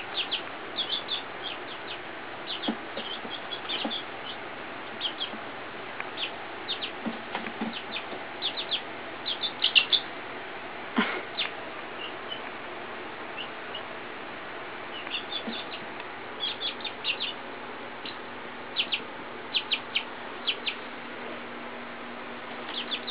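Young silkie chickens peeping: short high chirps in quick clusters, with one louder, longer call about eleven seconds in.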